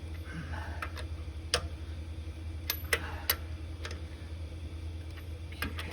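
Scattered sharp metallic clicks and knocks from a wrench tightening the lug nuts on a truck wheel, over a steady low hum.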